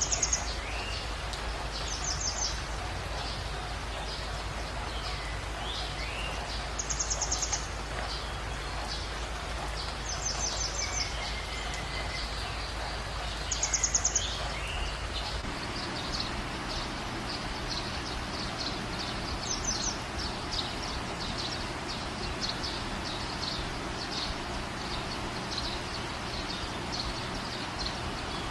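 Night-time wildlife calls over a steady hiss: short, high trills every few seconds, the loudest about halfway through, joined by a run of quick, high chirps in the second half.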